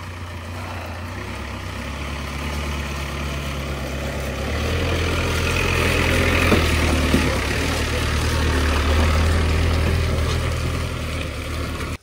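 Jeep engine straining as it works its way up, a low steady drone that grows louder over the first few seconds and then holds.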